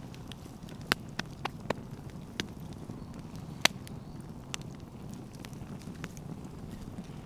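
Open wood campfire crackling: sharp, irregular pops and snaps over a steady low rush of the burning fire, the loudest pop about halfway through.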